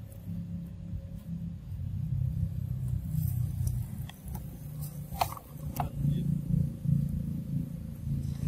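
A steady low rumble, with two short sharp clicks a little past halfway.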